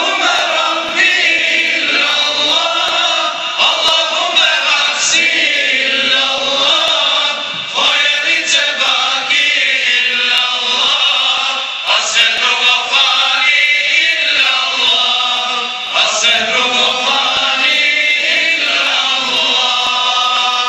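A group of men singing an ilahija, an Islamic devotional hymn, together in long chanted phrases. The singing stops near the end.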